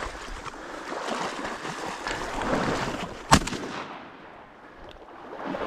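A single shotgun shot about three seconds in, the loudest sound here. Before it comes a steady rustling, splashing noise of wading through marsh reeds and water.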